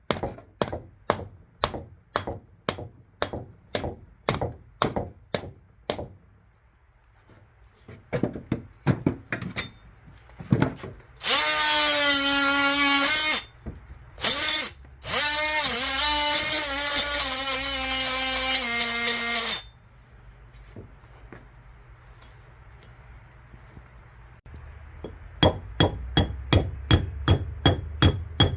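Repeated hammer strikes, about three a second, then a power drill running in two long bursts whose pitch sags and wavers under load, and near the end rapid hammer strikes again.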